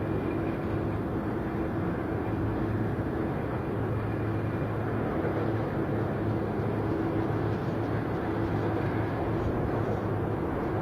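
Jet aircraft engines running with a steady rumble and a constant hum, neither rising nor falling.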